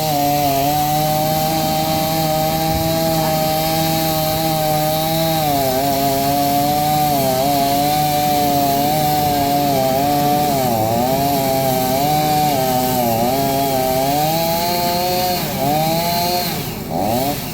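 Chainsaw running at full throttle while cutting into a burnt pine trunk. Its pitch dips and recovers again and again as the chain loads up in the cut, and the engine eases off about a second before the end.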